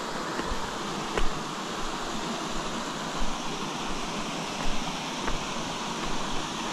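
Steady rush of a small creek waterfall running over shale ledges, with a few faint clicks about a second in and again later.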